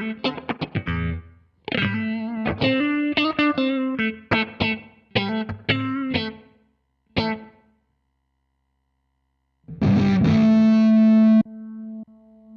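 Electric guitar played through a Hotone Ampero One multi-effects unit on an overdriven tone: quick picked single-note phrases, a pause of about two seconds, then one long held note that softens near the end.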